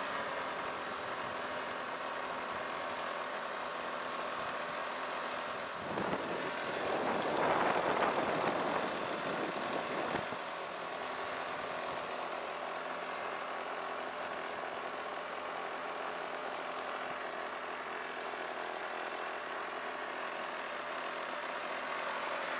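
A motor vehicle engine running steadily, with a louder rushing swell that rises and falls between about six and ten seconds in.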